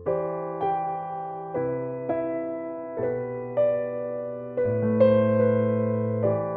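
Pianoteq 9 physically modelled software piano playing a slow phrase of chords and single notes, struck about once or twice a second, each ringing on and slowly fading under the next.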